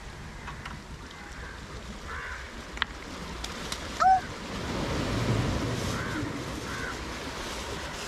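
Beach surf washing ashore, with a wave surging up and drawing back through the middle of the stretch. A brief high call cuts in sharply a little after four seconds, the loudest moment.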